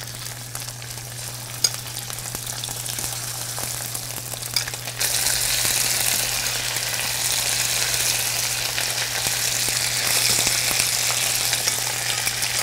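Chicken pieces frying skin-side down in hot grape seed oil on high heat: a steady sizzle that jumps abruptly louder about five seconds in. A couple of light clicks in the first five seconds.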